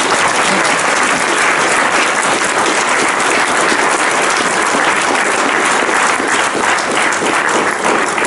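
Audience applauding, a dense, steady run of many hands clapping.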